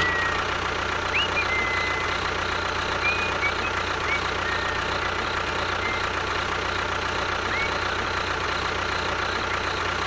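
Small engine of a home-built miniature construction machine running steadily at an even speed, with a few short high chirps over it.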